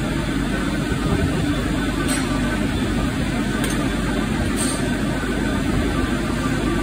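Self-propelled feed mixer wagon running steadily as it drives slowly along a barn feed alley, a dense, even machine drone with a few faint clicks.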